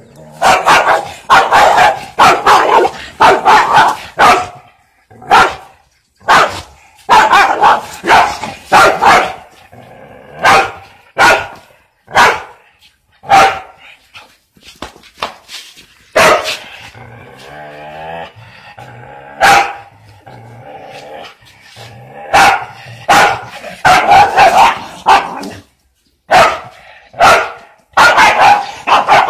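A small dog barking in quick runs of sharp barks at a rooster it is facing off with, with a quieter stretch around the middle.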